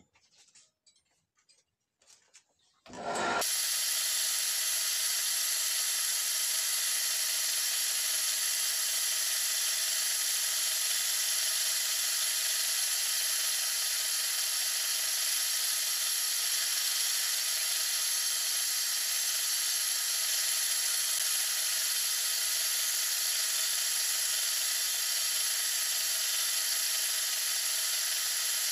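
Wood lathe switched on about three seconds in, then running steadily with a motor whine and a rubbing hiss as the turned wooden spindle is worked by gloved hands while it spins.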